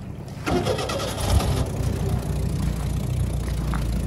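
Jet boat's Ford/Kodiak 2.4-litre inline-four inboard engine starting up: it turns over about half a second in, catches with a burst a little over a second in, then runs steadily.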